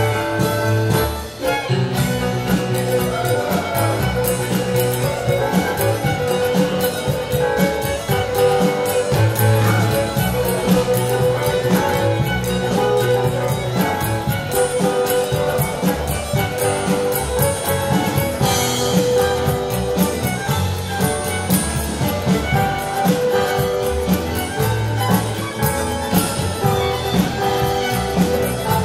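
Live contra dance band playing a dance tune with a steady beat.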